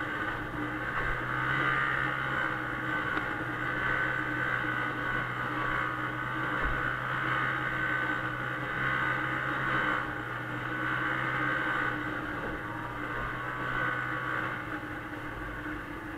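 1996 Arctic Cat Bearcat 340 snowmobile's two-stroke engine running steadily while riding along a snow trail. It eases off a little near the end.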